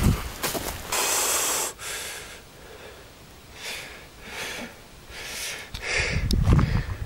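A man breathing close to the microphone: a loud, noisy exhale about a second in, then a string of short, soft breaths.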